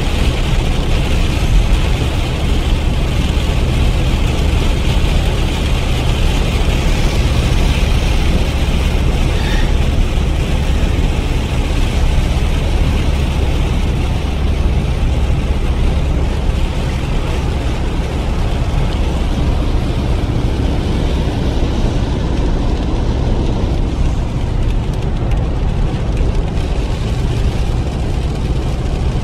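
Steady car cabin noise while driving on a wet road in heavy rain: a low engine and tyre rumble with an even hiss of rain and tyre spray.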